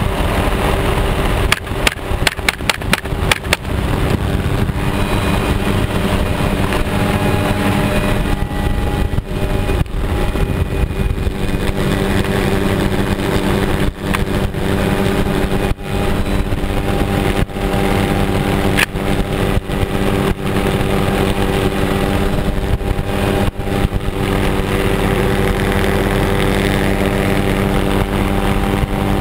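Helicopter in flight: the steady drone of its engine and rotor, with wind buffeting the microphone. A quick run of sharp knocks comes about two seconds in, and a few single ones later.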